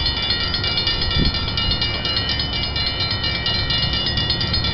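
Diesel locomotive running steadily out of sight: a continuous low rumble with a set of steady high-pitched whining tones over it. A short rising sound comes about a second in.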